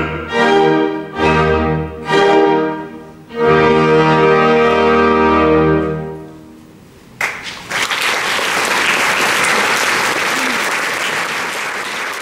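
Opera orchestra playing the closing chords of an aria: three short chords, then one long held chord that fades away. About seven seconds in, the audience bursts into applause, which keeps going.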